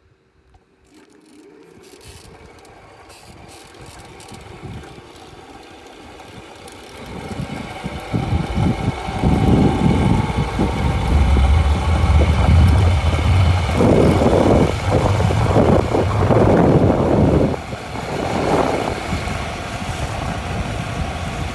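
Motorized bicycle with a chain-driven rear-mounted motor pulling away and speeding up. Motor, chain and wind on the microphone build over about eight seconds, then hold loud and steady at speed, with gusty low rumbling from the wind.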